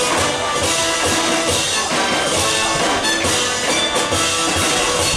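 Music with a steady beat: marching drums played with sticks, together with pitched instruments.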